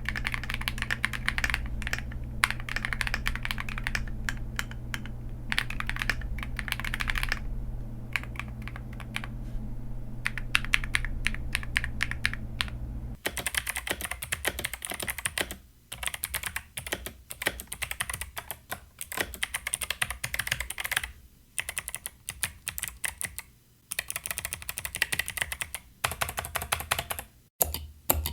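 Mechanical keyboard typing: fast, continuous keystrokes on a KiiBoom Phantom 98 over a steady low hum, then, about 13 seconds in, a switch to an 8BitDo Retro mechanical keyboard typed in short runs with brief pauses between them.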